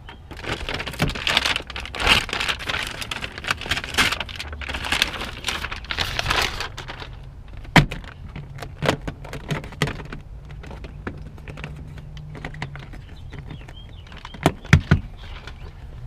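Foil-faced butyl sound-deadening mat crinkling and rustling as it is handled and pressed down onto a car floor pan. Near the middle and again twice near the end come sharp knocks.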